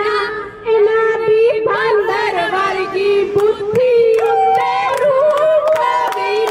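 Women singing a Punjabi folk song through a handheld microphone, with a long held note under the melody and a few hand claps.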